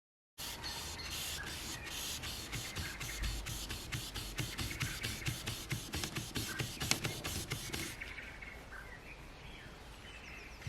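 Wet sandpaper on a sanding block rubbed by hand over car paintwork: quick rasping back-and-forth strokes, about four a second, growing softer for the last few seconds.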